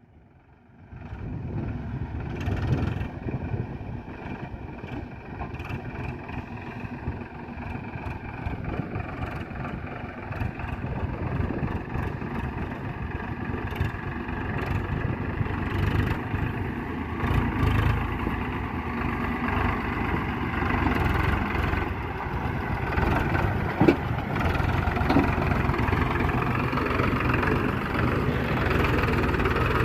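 Sonalika diesel tractor engine running steadily while working in mud, slowly growing louder, with one sharp knock about three-quarters of the way through.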